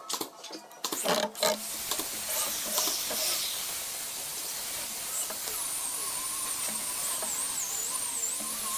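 Corded electric drill boring into the edge of a hardwood cabinet panel. It starts in short bursts, then runs steadily with a thin, wavering high whine.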